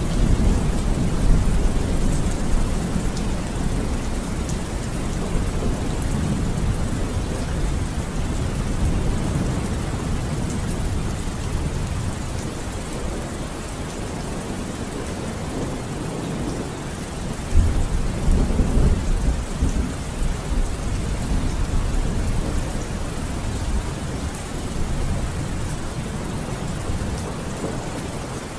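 Steady rain with low, rolling rumbles of thunder, the rumble swelling near the start and again about two-thirds of the way through.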